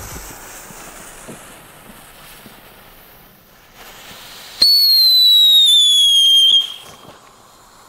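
Explode 'Pink Lady' firework car: its fuse sputters quietly, then about four and a half seconds in its whistle charge fires with a sudden loud whistle. The whistle slides slowly down in pitch for about two seconds and then stops as the jet drives the car along.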